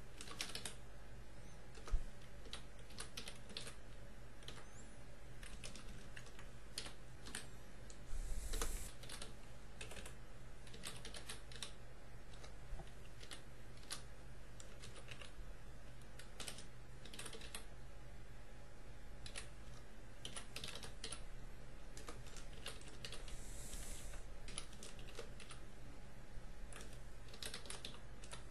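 Computer keyboard being typed on in irregular runs of keystrokes, with one louder click about two seconds in, over a faint steady low hum.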